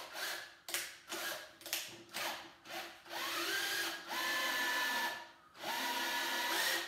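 Drill driving a Stripmeister wire stripper as a vacuum cleaner power cord is fed through to slit off its outer coating. A few short bursts come first, then the drill runs steadily for a couple of seconds, stops briefly, and runs again.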